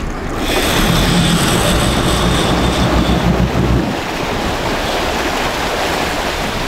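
Sportfishing boat's engine running, with wind on the microphone and sea water splashing. A thin steady high whine sits over it from about half a second in until about three seconds in, while the low rumble is strongest in the first four seconds.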